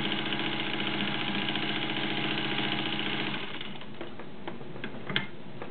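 Blackside Singer 15-91 sewing machine running steadily with a smooth motor hum, which stops about three and a half seconds in. A few light clicks follow near the end.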